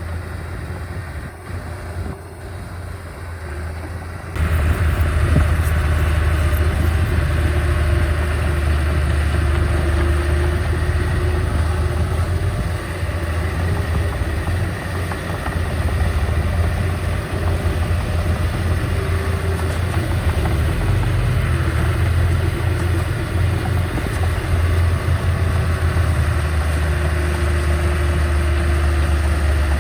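Diesel engine of heavy earthmoving machinery running steadily with a deep low rumble. It gets abruptly louder about four seconds in.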